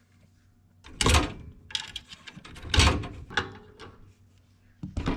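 Mechanical handling noises: two loud scraping clunks, about a second and nearly three seconds in, with smaller clicks and rattles between them.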